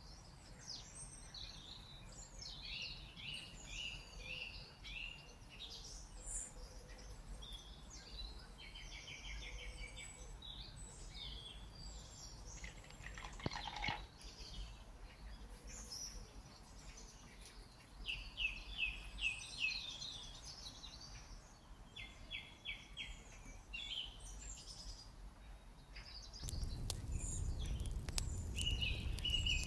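Small birds chirping and singing in short, rapid trills, over and over. Near the end a louder steady noise with sharp clicks comes in under the birdsong.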